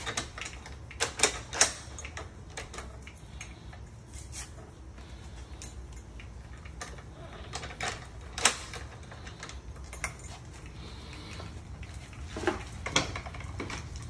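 Small metallic clicks and clinks of a brass mortise lock and its keys being handled: keys jangling against the lockset and the lock mechanism clicking. Three quick sharp clicks come about a second in, another around eight seconds, and a couple more near the end.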